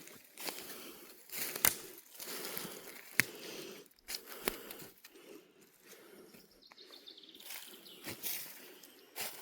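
Irregular crunching and rustling footsteps on an outdoor path, a sharp crackle every second or so. A short high whistle slides down about seven seconds in.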